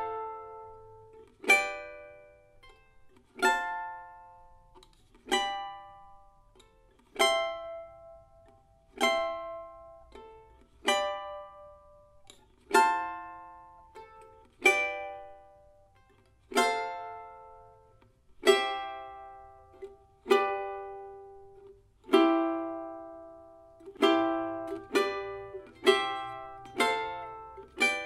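Charango playing a slow melodic exercise in three voices: plucked three-note chords that ring and fade, about one every two seconds, quickening to about two a second near the end.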